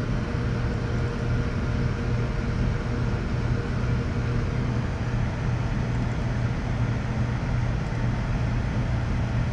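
Steady low hum with an even hiss from room ventilation running, unchanging throughout.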